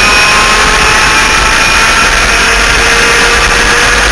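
Twin 100cc two-stroke engines of an enduro laydown kart running steadily at high revs down a straight, heard onboard with heavy wind rush over the microphone.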